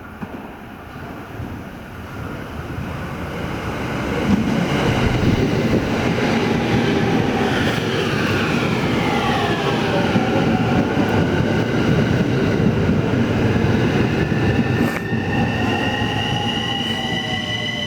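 Electric commuter train pulling into a station: its running rumble grows over the first few seconds, then the motors' whine falls in pitch as it brakes. A sharp click comes near the end, followed by a set of tones that slowly rise.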